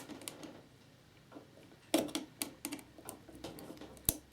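Scattered small clicks and taps of a hand tool working at the cells of a lithium-ion battery pack, with a cluster about halfway through and one sharp click near the end.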